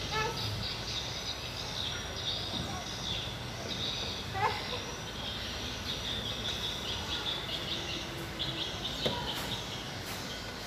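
Small birds chirping busily and without a break in the background, with a brief rising squeak about four seconds in and another short squeak near nine seconds.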